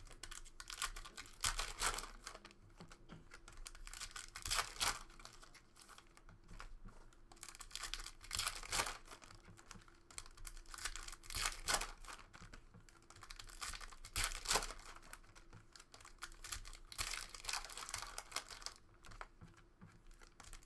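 Foil trading-card pack wrappers crinkling and tearing, with cards being slid and handled in short, irregular rustles and scrapes.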